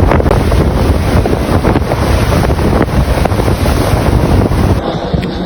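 Strong wind blowing over the microphone, a loud steady rumble heaviest in the lows. It drops off abruptly near the end.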